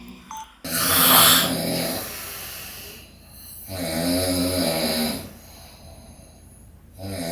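A man snoring loudly. A harsh, rasping snore starts about a second in, then two buzzing, pitched snores come about three seconds apart.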